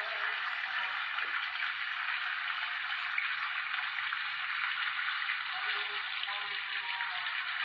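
Steady, dense hiss of an insect chorus droning on without a break. A few faint short tones sound near the start and again later.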